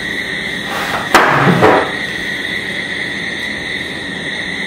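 Objects being handled: a sharp click about a second in, then about half a second of rustling, over a steady high-pitched background hum.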